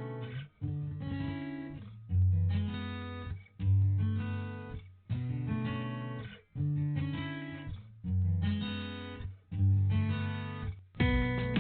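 Music: guitar chords strummed about every second and a half, each one ringing out and fading before the next.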